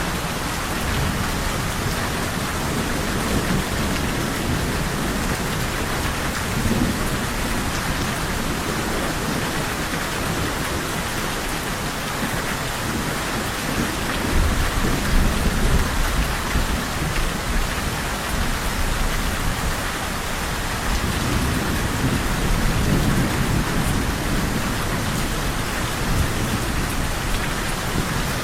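Steady heavy rain with rolling thunder, the low rumble swelling up about two seconds in, again around the middle, and once more later on.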